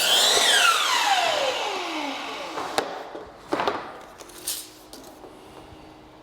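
Sliding miter saw motor at full speed, then winding down, its whine falling steadily over about two seconds after a cut through baseboard. A few sharp wooden knocks and clicks follow as the cut piece is handled.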